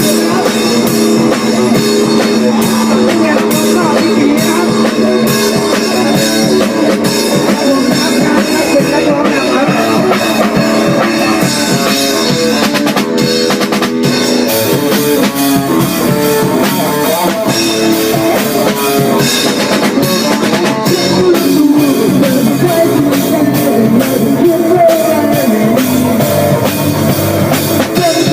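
Rock band music with a full drum kit, bass drum and guitar playing steadily throughout.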